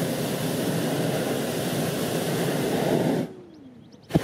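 Hot-air balloon's propane burner firing in a long, steady blast that cuts off sharply about three seconds in. A click comes near the end as the noise starts again.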